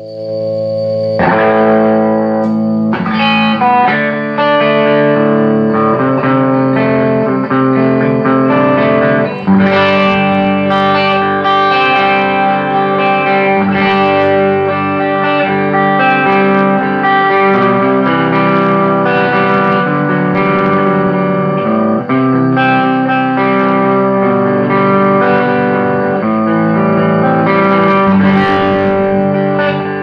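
Electric guitar played through a Soldano Atomic 16–style valve amp head into a custom slanted 2x12 cabinet loaded with an Electro-Voice and an Eminence Legend speaker, sounding in a small room. After a brief dip right at the start, the playing comes back in about a second later with sustained chords and notes that carry on loudly throughout.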